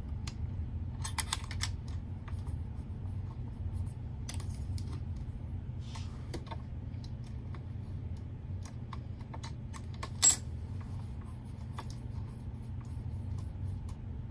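Small screwdriver working the needle plate screw out of a Janome sewing machine: scattered light metal clicks and scrapes, with one sharp click about ten seconds in.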